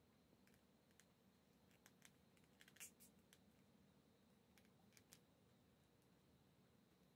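Near silence with a few faint, light clicks, a small cluster of them about halfway through: folded-paper claws on the fingertips ticking against each other as the hand flexes.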